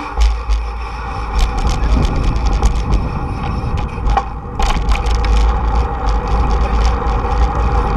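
Wind rumbling on the microphone of a camera riding on a moving bicycle, over steady tyre noise on a paved path. Scattered clicks and rattles come from the bike going over bumps and seams, with a cluster a little past four seconds in.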